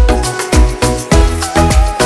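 Upbeat background music with a steady kick drum about twice a second under held melody notes.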